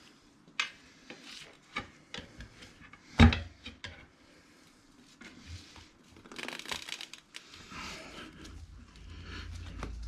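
Tire irons clicking and knocking against a motorcycle wheel rim while the soap-lubricated tire bead is pried off, with one sharp knock about three seconds in. Rubber scraping and rubbing against the rim follows in the second half.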